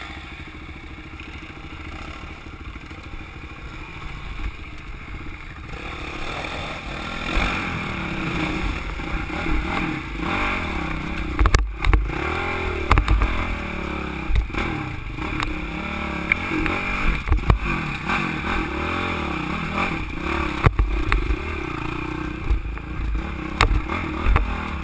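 Enduro dirt bike engines running and revving up and down in short bursts as the bikes pick their way over rocks. The engine sound is fainter for the first few seconds and close and loud from about six seconds in, with sharp knocks and clatter from the bike over the rocks.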